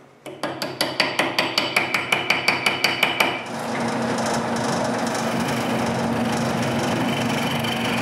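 Quick, even light hammer taps, about seven a second for some three seconds, driving a walnut plug into a wooden jig block held in a lathe chuck. About three and a half seconds in, the wood lathe starts and runs with a steady hum while a scraper cuts the plug's tip into a dome.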